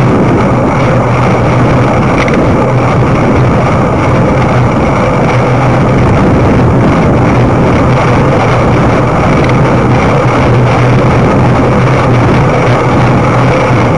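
Loud, steady rush of wind over the microphone of a camera riding on a moving bicycle, with a steady low hum beneath it.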